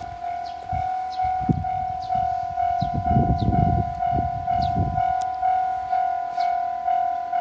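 Japanese level-crossing warning bell ringing steadily at about two strikes a second while a JR 313 series electric train passes. Its wheels clatter over the rail joints, loudest about three to five seconds in.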